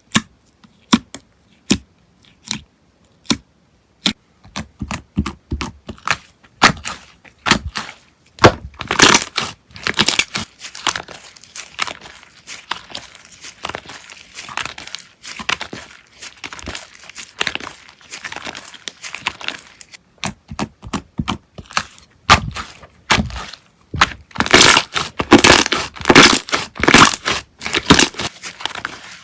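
Slime being squeezed and stretched by hand, making sharp separate pops for the first several seconds, then dense crackling and popping from about eight seconds in.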